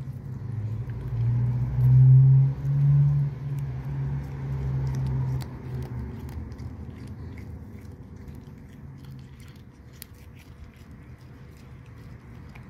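Cat licking a squeeze-tube treat, with faint wet clicks throughout. A low hum swells over the first few seconds, is loudest around two to three seconds in, and fades away by about six seconds in.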